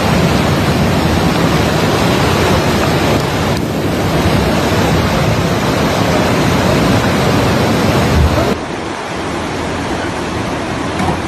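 Loud, steady rushing noise of storm wind or water, with no clear rhythm or tone. About eight and a half seconds in it cuts to a quieter, duller rush.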